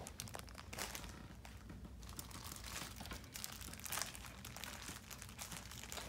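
Clear plastic bags of pins crinkling as they are handled and turned over: irregular crackling, with louder crackles about a second in and again about four seconds in.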